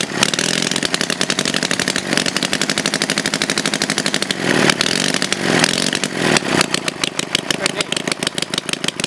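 Homemade twin-cylinder engine built from two Briggs & Stratton single-cylinder engines, revved up as the throttles are opened. It runs fast and steady for several seconds, then drops back to a slow idle about seven seconds in.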